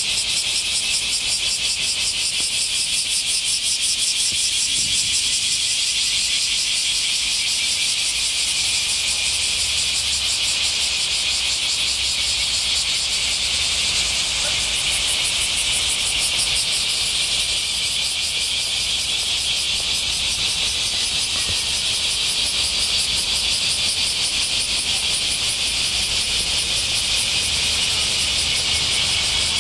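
A chorus of summer cicadas singing steadily, high-pitched and fast-pulsing, over a low rumble.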